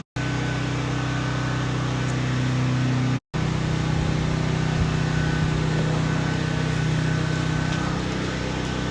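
A steady mechanical hum with a low droning pitch, dropping out for a split second twice.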